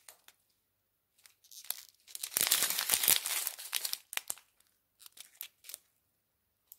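Small zip-lock plastic bags of diamond-painting resin drills being handled: crinkling plastic with light clicks, densest for a second or two about halfway through, with only a few scattered ticks before and after.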